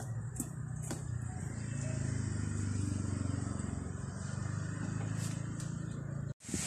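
A motor runs steadily with a low hum, and a few faint clicks sound over it. The sound breaks off abruptly near the end.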